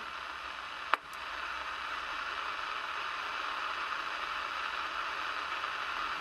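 CRT Super Star 3900 EFT CB radio's receiver hissing steadily with its antenna disconnected: the set's own receiver noise. About a second in, a sharp click as the NB-ANL noise filter switch is turned on, and the hiss carries on.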